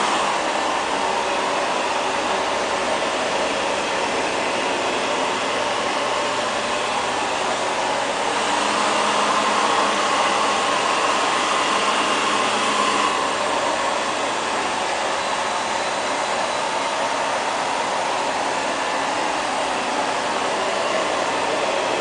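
LL-306 (X500) robot vacuum cleaner running: the steady whir of its motor, a little louder for a few seconds in the middle.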